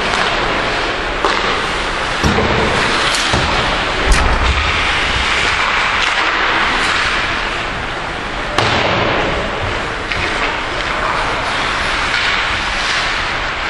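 Ice hockey play on a rink: a steady scraping hiss of skates on the ice, broken by a few sharp knocks of stick, puck or boards, the loudest about four seconds in and again near nine seconds.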